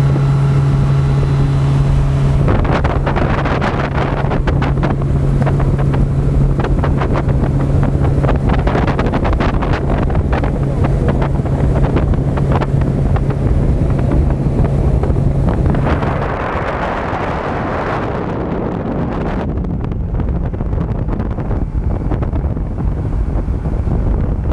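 115-horsepower outboard motor running flat out on a speeding boat, a steady drone under rushing water and wind buffeting the microphone. About two-thirds through the engine note is buried under the wind and spray noise.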